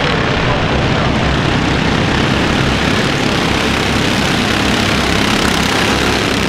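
A pack of Mini Cup race cars running at speed around a short oval track, many engines blending into one loud, steady drone as the field passes.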